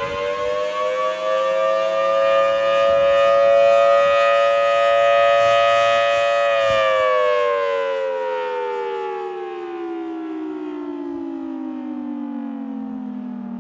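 Federal Signal Thunderbolt 1000T mechanical storm siren sounding the attack signal: its wail rises, holds high for several seconds, then about halfway through starts a long, steady fall in pitch as the siren winds down.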